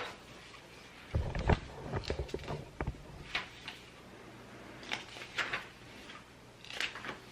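Scattered knocks, clicks and thumps of stroller parts being handled and fitted together during assembly, busiest about a second in.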